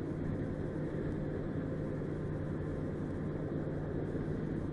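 Steady road noise and engine hum heard from inside a car's cabin at highway speed, with no sudden sounds.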